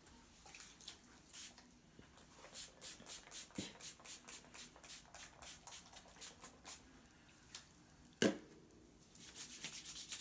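Hands massaging skin in quick rhythmic strokes, about three or four a second, followed by a single sharp pop about eight seconds in.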